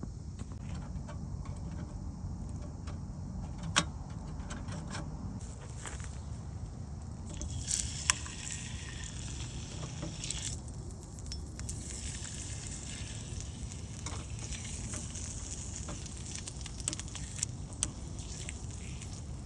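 Light metal clinks and knocks of cookware on a small iron camping stove, with a sizzling hiss that sets in about halfway through over a steady low rumble.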